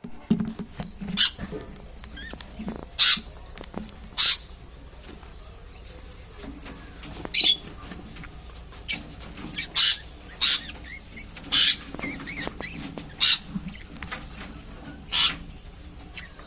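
Yellow-sided conures giving short, harsh squawks, about ten at uneven intervals, over a low steady hum.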